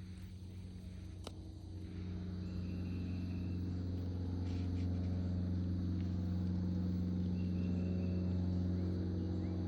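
A steady engine hum, growing louder about two seconds in and then holding at an even pitch.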